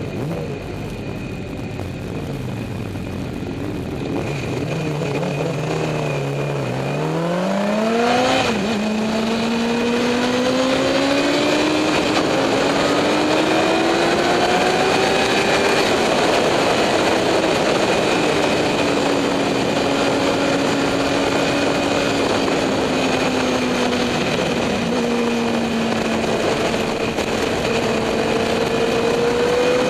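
Motorcycle engine on a race track at speed. Its pitch falls for the first seven seconds as it slows, jumps sharply about eight seconds in, then climbs steadily under acceleration. After that it eases off slowly and rises again near the end.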